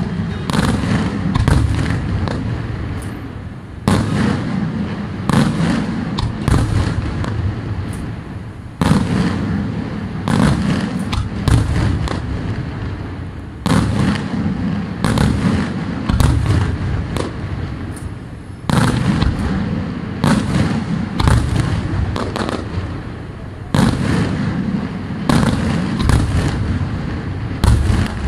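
Daytime fireworks display: a continuous barrage of aerial shells and firecrackers bursting in quick succession. A heavier salvo starts about every five seconds.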